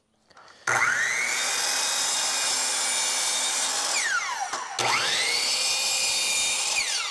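Kobalt electric miter saw started twice, cutting wood trim (brick molding): each time the motor spins up with a rising whine, runs steadily for about three seconds, then winds down with a falling whine.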